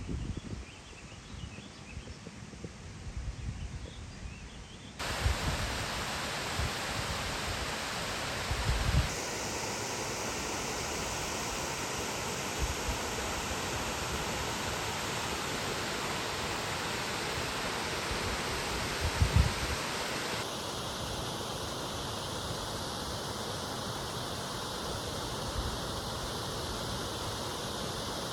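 Steady rush of falling water at a working water mill. The first few seconds are quieter with a low rumble of wind on the microphone, and then the water noise comes in louder and stays even.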